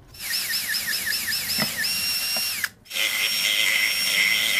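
Electric drill boring through a plastic battery-pack housing. The motor whine wavers rapidly up and down at first, then holds steady, cuts out briefly a little past halfway, and starts again, running steady.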